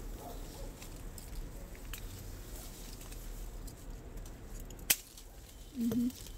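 A single sharp snip of hand pruning shears cutting through a mandarin stem, about five seconds in, over the light rustle of leaves and twigs being handled.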